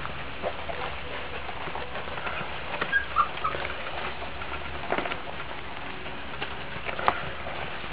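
Month-old Chesapeake Bay Retriever puppies moving about, with scattered light taps and scratches and a couple of brief high squeaks about three seconds in.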